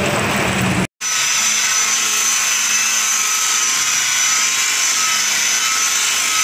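Corded electric rotary polisher running steadily with a high motor whine as its foam pad buffs a car's painted fender. Before it there is about a second of a different, noisier sound that cuts off abruptly.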